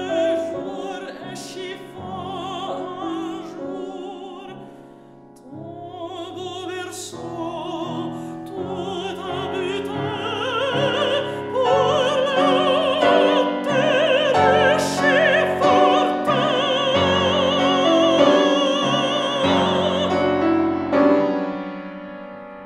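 Mezzo-soprano singing with a wide vibrato over grand piano accompaniment. The music builds to a loud, sustained high passage, then near the end the voice stops and the piano dies away.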